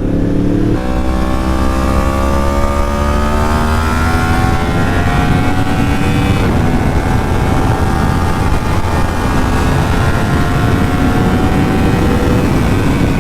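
Yamaha R1 sport bike's inline-four engine accelerating under way, its pitch rising for about six seconds, dropping at a gear change, then climbing slowly again, over a steady rushing noise.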